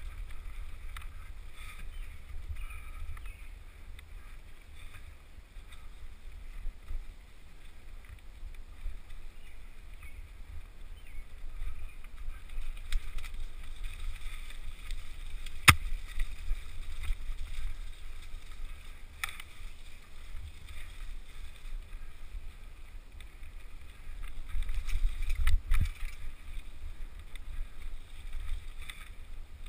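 Mountain bike rolling fast down a dirt trail, heard from a helmet-mounted camera: a steady low wind rumble on the microphone with the bike rattling, broken by a few sharp knocks, the loudest about halfway through. It gets louder and rougher near the end.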